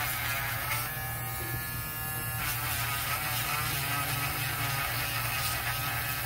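Small handheld electric nail drill with a coarse sanding band bit, running with a steady buzzing whine as it sands down thick acrylic on a fingernail. The whine shifts in pitch about a second in and again a little later.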